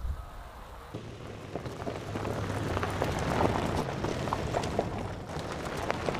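An SUV driving past on a gravel road: its tyres crunch and crackle over loose stones above a low engine hum. The sound builds from about a second in and is loudest midway.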